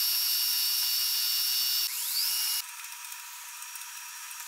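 Milling machine spindle running a drill bit into a steel fixture plate, with a steady high-pitched whine. About two seconds in the pitch rises briefly, then the sound drops to a quieter steady hum.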